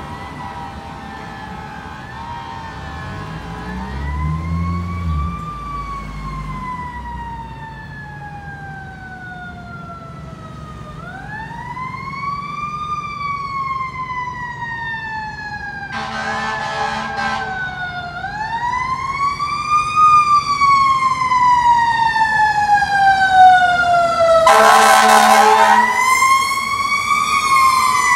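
A fire engine's siren wailing in slow rising and falling sweeps, growing louder as the engine approaches, with two long horn blasts cut in about halfway and again near the end.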